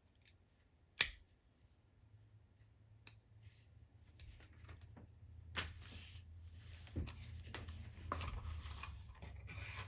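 True SP18k multitool folding up, with one sharp metal click about a second in, then fainter clicks and rubbing as its parts are handled and opened out.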